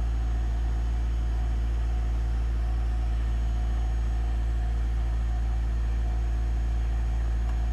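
Audi A3 engine compartment giving off a steady, unchanging low hum, with no sign of rising or falling revs.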